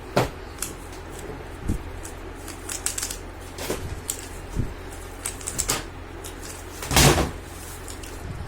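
3×3 Rubik's cube being turned quickly during a timed solve: irregular clicks and clacks of the layers snapping round, with a louder clatter about seven seconds in.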